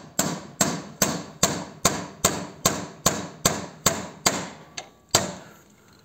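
A hammer tapping the front axle of a 2022 Honda Goldwing out through the fork, in a steady run of about a dozen sharp strikes, roughly two and a half a second, with one last tap about five seconds in. Each blow drives the loosened axle a little further out of the wheel.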